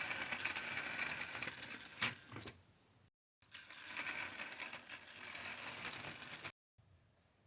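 HO/OO electric model train running on its track: the small motor and wheels give a steady mechanical rattle and whir. It fades out about three seconds in, then starts again and cuts off abruptly near six and a half seconds.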